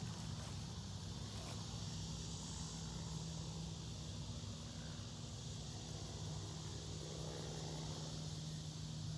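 Steady outdoor ambience: a continuous high insect drone over a low, steady hum.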